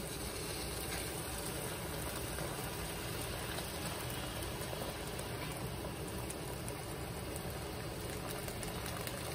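Hot water poured steadily from a kettle into a large pot of pelau, splashing onto the cooking rice.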